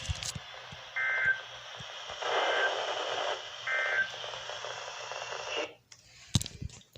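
Three short, buzzy Emergency Alert System end-of-message data bursts a little over a second apart, heard over a hissing radio signal. They mark the close of the severe thunderstorm warning. The signal cuts out about six seconds in, and a sharp click follows.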